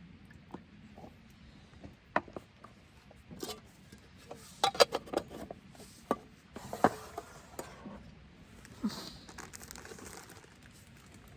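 Scattered sharp clicks, taps and light knocks of objects being handled and set down, with a quick cluster of them about halfway through and softer rustling near the end.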